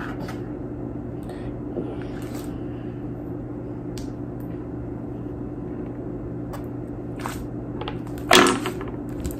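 Steady low hum with a few faint, short clicks and rustles as hands press and crumble kinetic sand in a plastic tray. A brief vocal sound comes about eight seconds in.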